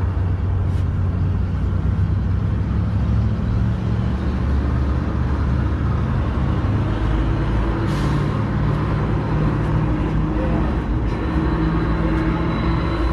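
A vehicle engine idling steadily close by, with a low, even drone and a couple of faint clicks partway through.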